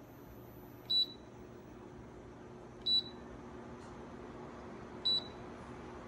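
CUUD tower fan's touch control panel beeping as its buttons are pressed: three short, high single beeps about two seconds apart.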